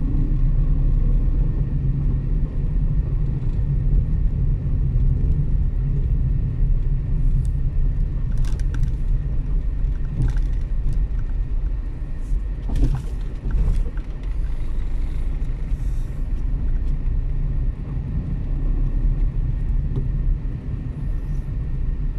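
Steady low rumble of a car's engine and road noise heard from inside the cabin while driving. A few short clicks come between about 8 and 16 seconds in.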